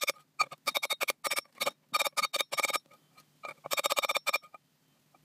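Speedi-sleeve being tapped onto the rear seal surface of a Ford FE crankshaft, played back sped up. The sound is quick clusters of light metallic taps with a ringing tone: about ten short bursts, then a pause of about a second before a last, longer burst.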